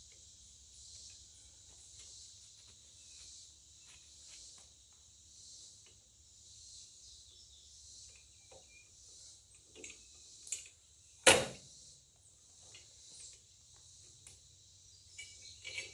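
Steady high-pitched insect chirring with faint clicks of hitch parts being handled, and one sharp knock from the tractor's hitch hardware about eleven seconds in.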